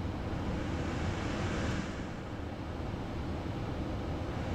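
Steady rush of airflow and engine noise inside the cockpit of an Embraer Phenom 300E business jet in flight, with no distinct tones or knocks.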